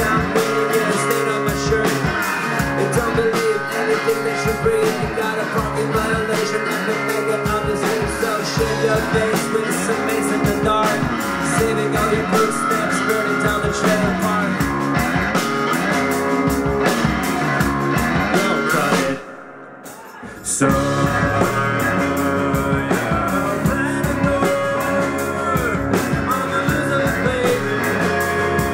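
Rock band playing live: electric guitars, bass guitar and drums. About two-thirds of the way through the band drops out for a moment, then comes crashing back in together.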